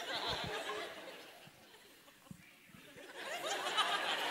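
Theatre audience laughing. The laughter dies down about a second and a half in, then swells again about three seconds in.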